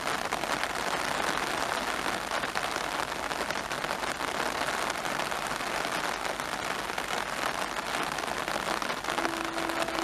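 Rain falling as a steady, even hiss. Near the end a faint steady tone joins it.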